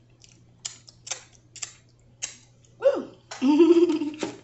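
Wet lip smacks from a person licking sauce off her fingers and eating a last bite: four sharp smacks about half a second apart. Then a short falling voice sound and a loud exclaimed "Woo!" near the end.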